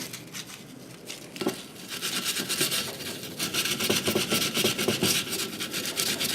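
400-grit sandpaper rubbed by hand in quick back-and-forth strokes over an old wheel center cap to take off leftover adhesive. The sanding gets going about two seconds in, after a single knock.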